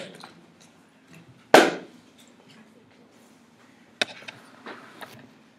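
A classroom door being shut: one loud thud about a second and a half in, with a short echo of the room after it. A sharper knock follows about four seconds in, among small clicks and handling noises.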